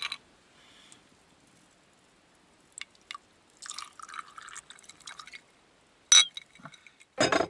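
Clear liquor poured from a glass bottle into a glass mug. A couple of small clinks come first, then the pour splashes into the glass for about two seconds. A sharp ringing clink of glass follows about six seconds in, and a heavier knock comes near the end.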